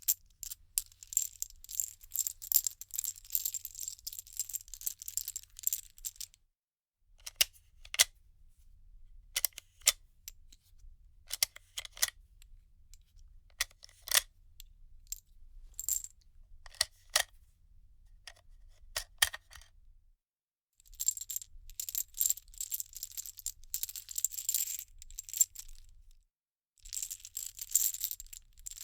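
Loose metal bullet cartridges being handled, clinking and jingling against each other. A dense run of jingling lasts about six seconds, then come single sharp clinks spaced out for about fourteen seconds, and near the end two more runs of jingling.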